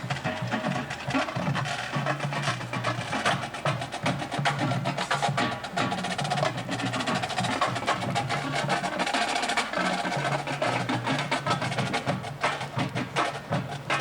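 Drum and bugle corps music led by the percussion section: rapid, dense drum strokes over low sustained notes that shift every second or two.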